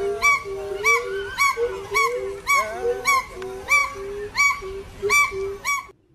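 A regular series of short, pitched animal calls, about two a second, over a lower repeated hooting note. The calls stop abruptly near the end.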